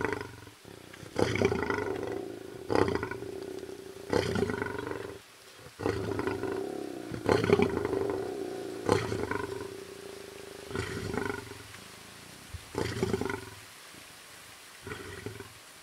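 African lion roaring: a bout of about nine deep calls, one every second and a half to two seconds, growing fainter and further apart toward the end.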